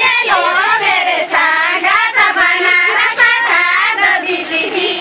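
Women singing a Santali wedding song in high voices, with long held, wavering notes.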